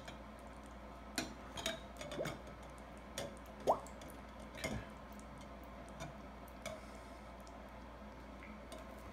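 Hydrogen gas from a plastic tube bubbling up into a water-filled glass beaker held upside down: scattered small plops and clicks, with one louder rising bloop about three and a half seconds in.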